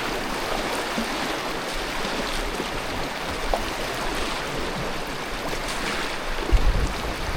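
Steady rush of river water around a kayak, with a brief low bump about six and a half seconds in.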